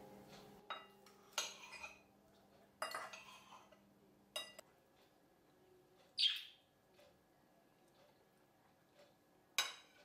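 Metal fork and knife clinking and scraping against a ceramic bowl during eating: a handful of separate clinks and short scrapes, the loudest a brief high-pitched squeak about six seconds in and a sharp clink near the end.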